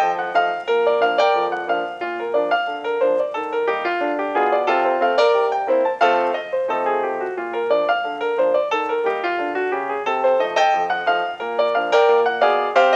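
Background piano music, a quick run of bright notes played continuously.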